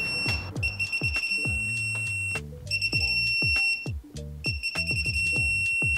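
Digital torque wrench sounding its steady high beep as the oil squirter bolts reach the set torque of about 11 ft-lb, the tone breaking off and starting again three times as each bolt is tightened. Background music with a beat plays underneath.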